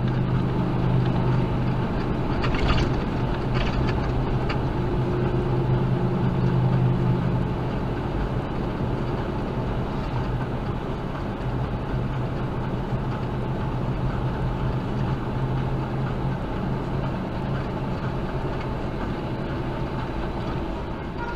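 Semi truck's diesel engine running steadily at highway speed, with road and wind noise, heard from inside the cab. The drone eases a little about seven seconds in.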